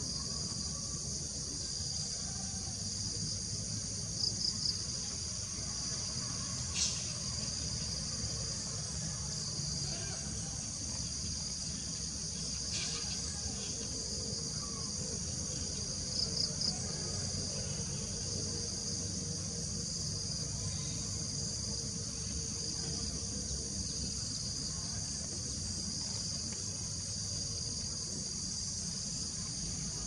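Steady, high chorus of field insects such as crickets, buzzing without pause over a low background rumble. Brief triple chirps cut through about four seconds in and again at about sixteen seconds.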